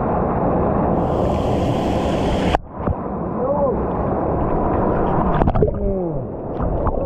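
Steady rush of flowing stream water, broken by a brief sharp dip about two and a half seconds in; faint voices call over it in the second half.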